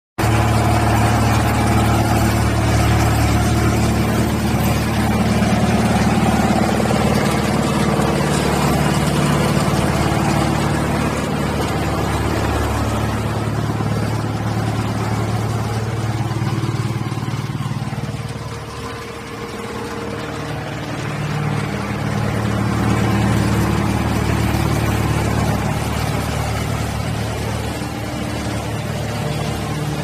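Wood chipper and hammer mill machinery running: a loud, steady mechanical drone with a low hum. The sound dips briefly about two-thirds of the way through.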